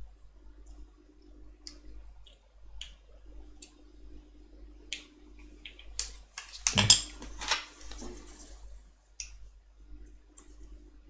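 Light plastic clicks and rattles as a USB flash drive's black plastic casing is handled and fitted over its circuit board, with a cluster of louder clicks about six to seven seconds in.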